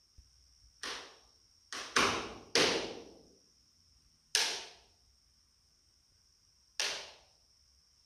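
Closed-cell spray foam insulation popping and cracking as it contracts and pulls away from a metal Quonset hut roof, leaving a gap between foam and metal. There are six sharp cracks at uneven intervals, each dying away within about half a second, and the loudest pair comes about two seconds in.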